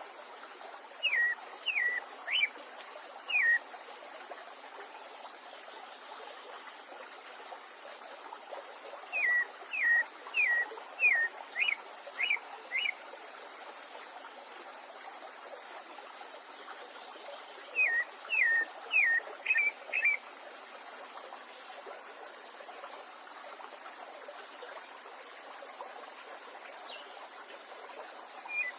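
A songbird calling in bouts of four to six quick, sharply down-slurred whistled notes, three bouts spaced several seconds apart, over the steady rush of a running stream.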